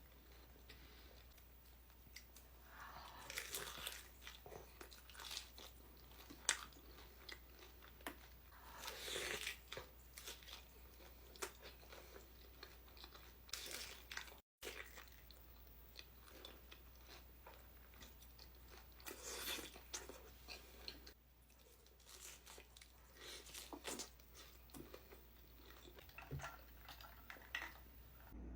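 A person biting and chewing food close to the microphone, with irregular crunches and chewing sounds. The sound cuts out completely for a moment about halfway.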